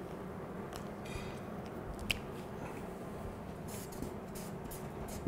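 A felt marker scratching across flipchart paper in short strokes, starting about three and a half seconds in, after a couple of faint clicks over a low steady room hum.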